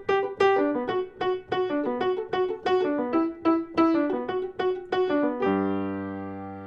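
Background music: a piano plays a quick, repeating pattern of notes, about four a second. About five and a half seconds in it settles on a held chord that slowly fades.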